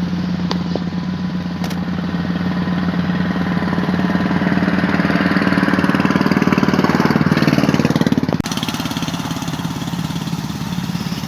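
A small engine running steadily, with a fast even pulse. It grows louder toward the middle, dips briefly about eight seconds in, then settles back to a steady run.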